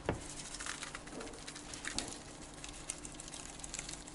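Salt shaker shaken over sliced eggplant rounds: faint rattling and light pattering of salt grains, with a soft knock at the start.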